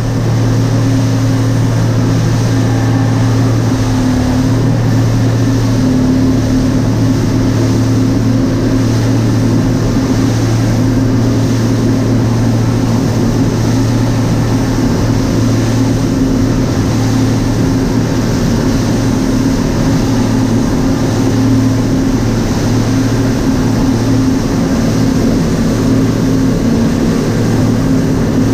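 Outboard motor running steadily at speed, a constant low hum with no change in pitch, under the rush of water along the hull and through the wake.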